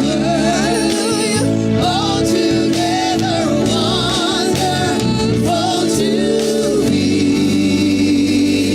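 Gospel music: singing with ornamented runs and wavering notes over held chords and bass. About seven seconds in the singing stops and the sustained chords carry on.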